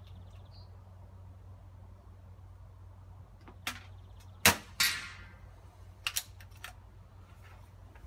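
A single shot from a PCP air rifle, a sharp crack about halfway through, followed a split second later by a ringing metallic strike as the pellet hits a steel spinner target downrange. A few light clicks follow about a second and a half later.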